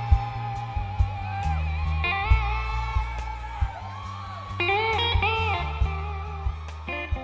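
Background music: a guitar melody with bending, sliding notes over a steady bass line and a regular drum beat.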